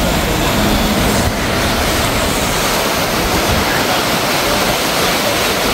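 A car driving through deep floodwater, its wheels churning and splashing the water in a loud, steady rush.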